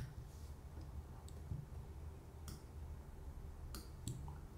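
A few scattered, faint clicks from computer input over a low steady hum of room tone.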